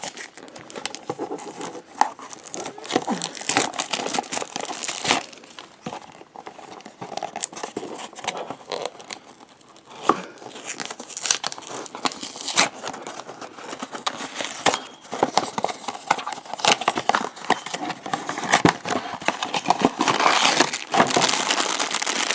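A cardboard Funko Mystery Minis blind box being torn open by hand, with many small crackles and clicks, then the black foil wrapper inside crinkling, loudest near the end.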